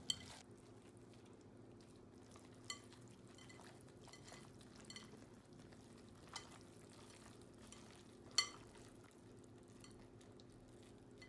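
Faint mixing of cornbread dressing in a bowl: a few soft clicks and taps, the loudest about eight seconds in, over a low steady hum.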